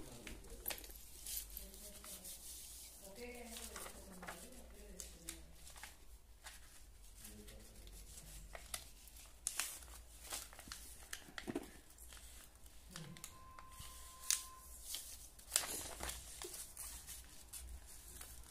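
A sheet of paper rustling and crinkling in short, sharp crackles as it is folded by hand and its creases pressed down, in the middle of making a paper aeroplane.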